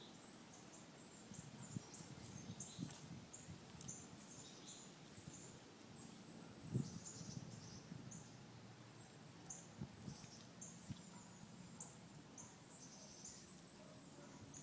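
Birds singing in the morning: many short, high chirps repeating one after another, over faint outdoor background noise. Scattered low thumps, the loudest about seven seconds in.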